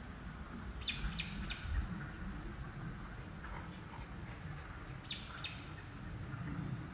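An unidentified animal calling: short, high, scratchy calls in a quick run of three, then two more about four seconds later, over a low outdoor background.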